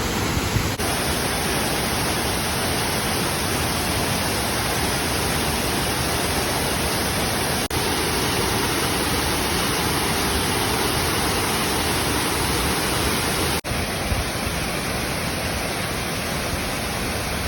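Waterfall: a steady rush of falling, splashing water, with brief dips where the recording is cut, about a second in, near the middle and again a few seconds later.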